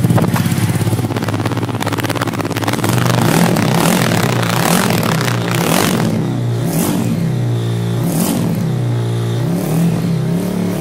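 TVS Apache RTR 200 4V's single-cylinder engine running and being revved, its exhaust note rising and falling in pitch several times.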